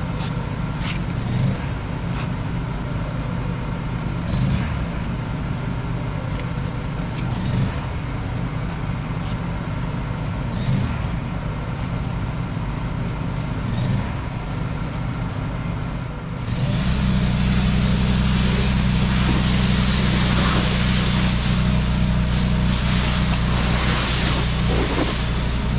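A motor hums steadily with faint knocks about every three seconds. About two-thirds of the way through, a pressure washer starts spraying with a loud hiss of water, and its motor hum grows louder under load.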